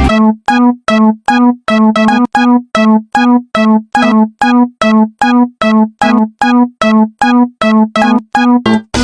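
Japanese railroad-crossing alarm bell ringing: the same electronic bell tone struck over and over at about three strikes a second, each dying away quickly. A lower sound joins near the end.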